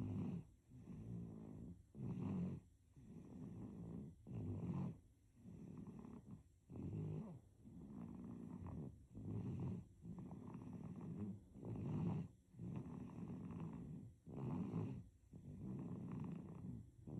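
A baby snoring: an even cycle of breaths, a stronger snore about every two and a half seconds with softer ones in between.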